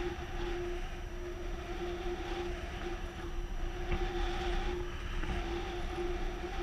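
Rushing airflow on a camera microphone on a flying paraglider, with a steady humming tone and a fainter wavering tone above it.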